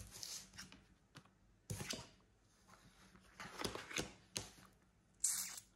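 Oracle cards being laid out and slid across a wooden tabletop by hand: a few faint, short brushing and tapping sounds, with a brief hissing slide near the end.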